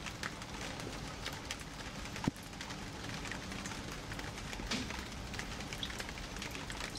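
Rain falling steadily, with many separate drop ticks and one sharper tap about two seconds in.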